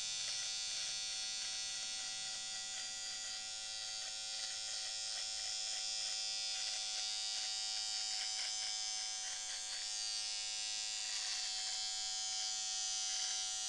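Electric hair trimmer running with a steady high buzz as its blade is pressed in and drawn down along the beard's neckline to cut the line.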